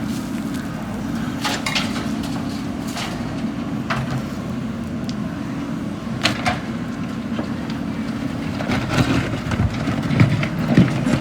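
JCB 3DX backhoe loader's diesel engine running steadily under work, with several sharp metallic clanks. It turns louder and rougher near the end.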